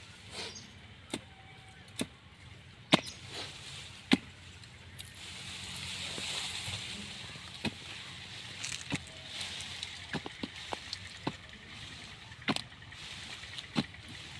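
A short-handled hand digging blade (a ramba) chopping and scraping dry soil around a guava tree's root ball, in irregular sharp strikes with soft scraping and crumbling soil between them.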